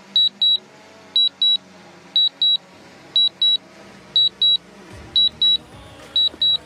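DJI drone remote controller sounding its return-to-home alert: a loud high double beep repeating about once a second, over a faint steady hum. The alert means the Mavic Pro Platinum is flying itself home and descending to land.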